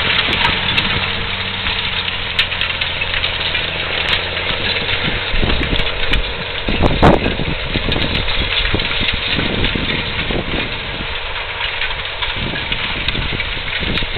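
Claas Xerion tractor's engine running under load as it pulls a stubble cultivator away, its drone growing fainter after the first few seconds, under a steady rushing noise with a loud burst about halfway through.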